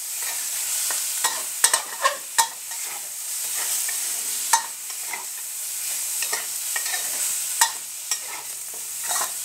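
Minced pork and red curry paste sizzling in an oiled metal wok as a metal spatula stirs and scrapes it, with irregular sharp clinks of the spatula against the pan.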